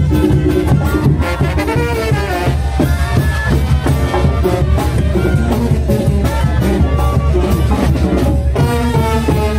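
Oaxacan brass band playing a lively tune: brass melody over a steady drum beat.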